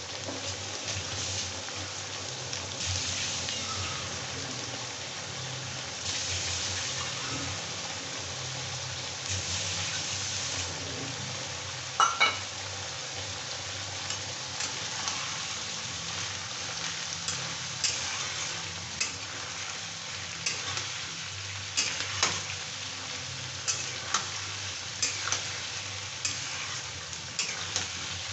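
Sliced onions and chickpeas sizzling in hot oil in a kadai, a steady frying hiss. A metal spatula knocks sharply against the pan about 12 seconds in, then clicks and scrapes more and more often in the second half as the mix is stirred.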